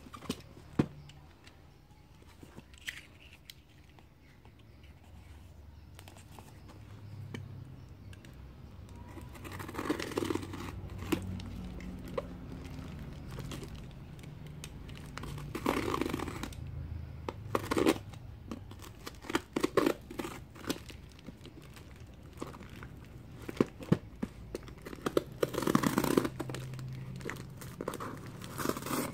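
A cardboard parcel wrapped in packing tape being cut and torn open by hand: bursts of tape and cardboard tearing and crinkling, with scattered small clicks and scrapes.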